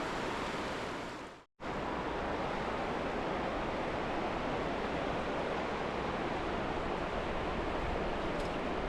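River water rushing with a steady noise. It fades out briefly about a second and a half in, then returns abruptly.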